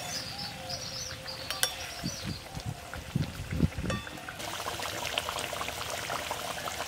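Coconut-milk curry gravy with eggs simmering in an iron kadai over a wood fire. A spatula stirs in the pan with a few knocks in the first seconds, then after about four seconds a dense, steady crackle of bubbling gravy takes over.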